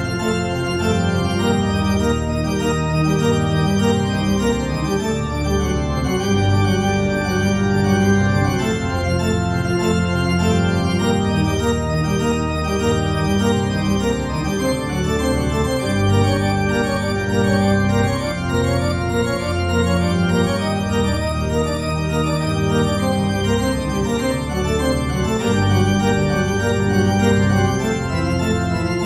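Organ music playing slow, sustained chords that change every second or two, as accompaniment to a silent film.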